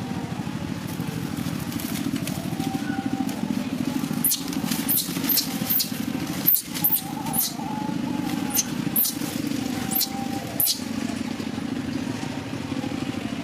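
A small engine running steadily with a fast, even putter. From about four seconds in to about eleven, around ten short, high-pitched chirps break in over it.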